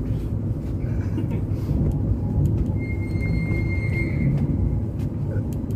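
CAF Urbos tram running along street track, heard from inside the driver's cab: a steady low rumble, with a thin high tone sounding for about a second and a half midway.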